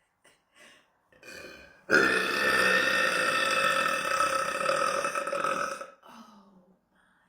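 A young woman burping: one long, loud, drawn-out burp that starts abruptly about two seconds in, holds a steady pitch for about four seconds and then trails off. A few faint short sounds come just before it.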